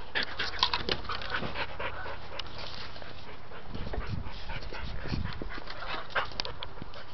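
A dog panting rapidly, densest in the first couple of seconds and then more sparse.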